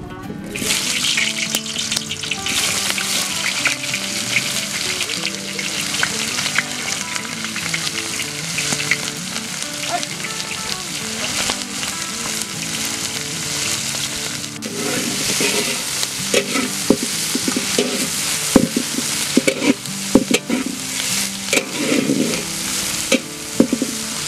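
Sliced onions sizzling loudly in hot oil in a large metal wok, the sizzle starting suddenly about half a second in as they go into the oil. From about halfway through, a spatula stirs them, with irregular scraping strokes against the pan.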